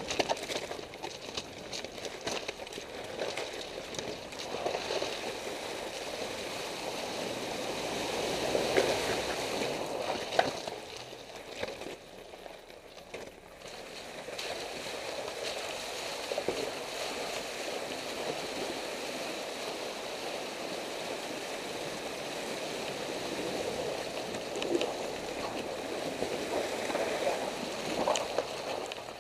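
Mitsubishi Pinin crossing a shallow rocky creek and driving over river stones: water splashing and rushing around the tyres, with a steady noise that dips briefly about halfway through.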